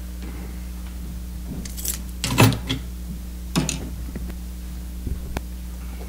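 A steady low electrical hum with a few knocks and rustles over it. The loudest comes about two and a half seconds in, another about a second later, and a sharp click near the end.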